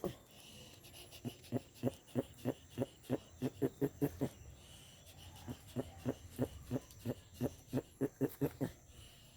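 Male jabuti tortoise giving its mating calls while trying to mount a female: a run of short, low, pitched grunts about three a second, breaking off for about a second near the middle and then starting again.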